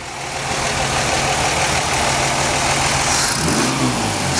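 1958 Chevrolet's dual-carburettor straight-six idling steadily through its newly built exhaust, with a smooth note and no putt-putt. About three seconds in the engine note shifts briefly as the throttle at the carburettors is worked.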